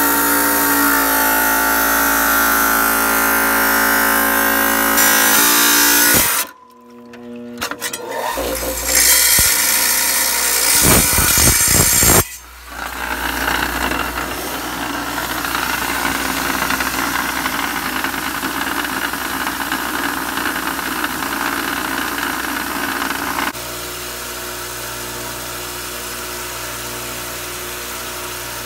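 Small electric lapidary grinder running with a steady motor hum while a rough stone is held against its wet wheel. The sound drops out briefly about six seconds in and changes abruptly a few times.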